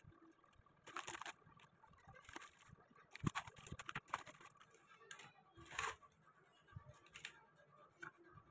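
Faint rustling and crinkling of crumpled kraft packing paper and small foil anti-static bags being handled and set down, in short scattered bursts.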